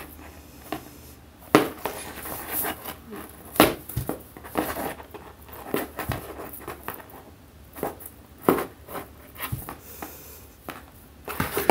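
A cat's paw knocking and scraping against a cardboard box as it reaches through a hole to bat at a dangled string. The knocks are sharp and irregular, the loudest about one and a half, three and a half and eight and a half seconds in, with rustling scrapes between them.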